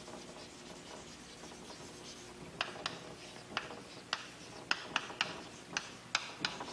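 Chalk writing on a blackboard: faint scratching, then from about a third of the way in a run of sharp taps as the chalk strikes the board, about two a second.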